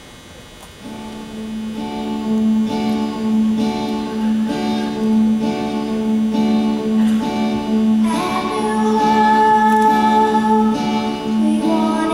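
Live band intro: acoustic guitar strummed in a steady rhythm over a held chord, starting about a second in. Singing begins about eight seconds in.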